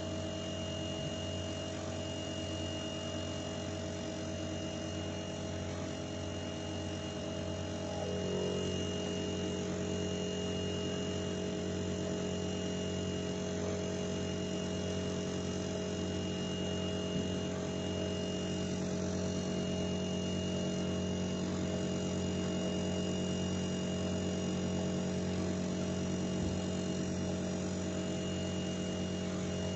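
A machine running with a steady, pitched hum. About eight seconds in, the tone changes and settles into a slightly louder, steady drone.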